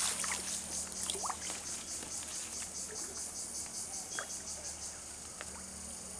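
Insect chorus: a high, rapidly pulsing trill that becomes steadier near the end, with a few brief chirps over it.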